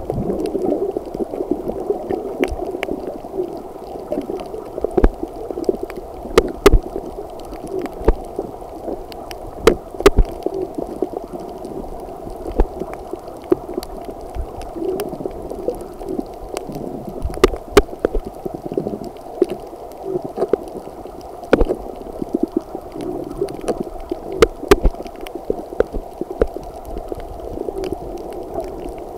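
Underwater sound picked up by a camera submerged over a coral reef: a steady, muffled gurgling wash with many scattered sharp clicks.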